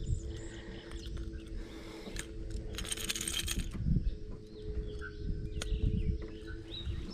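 Light metallic clinking and rattling of fishing hooks and tools as a lure is worked free, with scattered clicks and a louder rattle about three seconds in, over a steady low hum.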